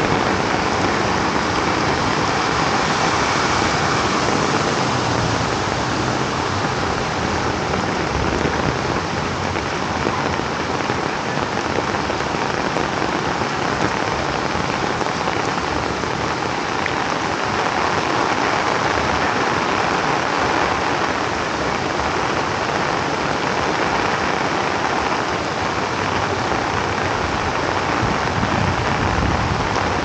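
Heavy rain falling steadily, a loud, even hiss of a downpour with no let-up.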